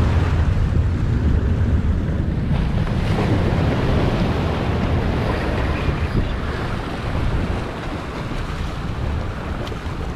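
Surf washing and sloshing against the boulders of a rock breakwall, under a heavy low rumble of wind buffeting the microphone.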